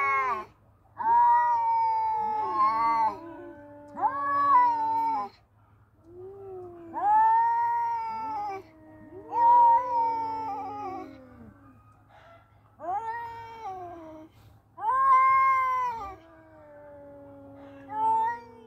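Two male cats caterwauling at each other in a fight standoff: long, wavering yowls that rise and fall, one voice higher and one lower, often overlapping. They come in repeated bouts with brief pauses between them.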